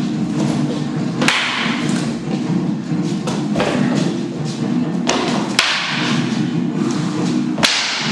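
Eskrima fighting sticks striking each other and the fighters' padded gear in sparring: about six sharp, irregular hits, the strongest a little over a second in and near the end.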